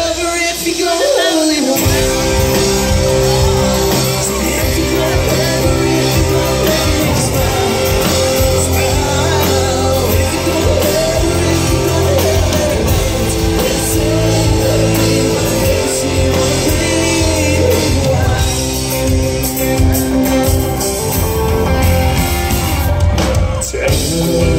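Country band playing live in a large hall: acoustic and electric guitars, bass and drums behind a male lead vocal. The drums and bass come in about two seconds in.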